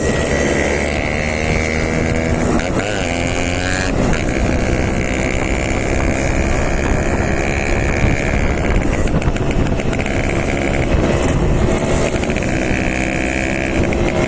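Yamaha RX 100's two-stroke single-cylinder engine running and being revved, its note climbing and dropping a few times.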